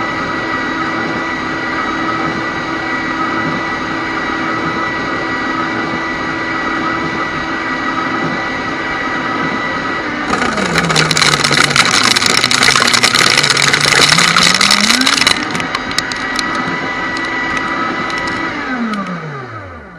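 Shredder motor running with a steady hum, then bogging down about halfway through as a CD is fed into the cutters, with about five seconds of loud cracking and crunching while its pitch sags. The motor then speeds back up to its running pitch and winds down to a stop near the end.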